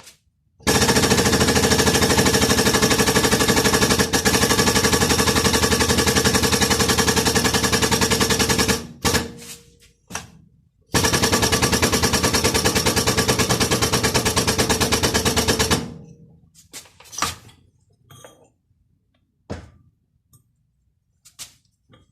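Pneumatic air tool running in two long bursts of very rapid hammering, about eight seconds and then about five seconds, followed by a few short metal knocks and clinks.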